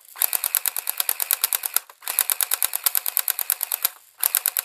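Well P90 airsoft gun firing on full auto: rapid even clacking shots, about fourteen a second, in three bursts, the last one shorter and starting near the end.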